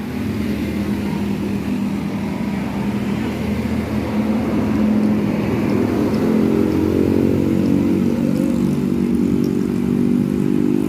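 Tour bus engine running, its pitch climbing as it picks up speed from about four seconds in, then holding steady.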